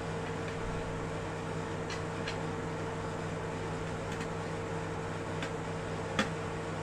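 A steady background hum, with a few faint clicks and taps of a screwdriver and wire being handled on a plastic switch plate. The sharpest tap comes about six seconds in.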